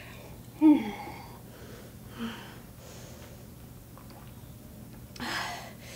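A woman breathing hard while she drinks water after exercise: a short falling sigh about half a second in, softer breaths and sips, then a louder breath out near the end.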